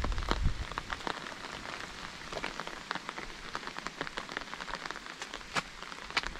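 Rain falling, heard as a faint steady hiss with many individual drops ticking sharply and irregularly close by. A few drops land louder, about five and a half and six seconds in.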